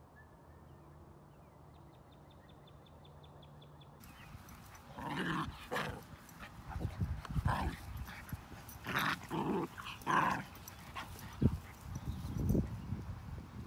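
Dogs growling and barking in rough play, a vizsla and a whippet puppy, in repeated loud bursts from about five seconds in. Before that it is quiet, with a faint fast high trill.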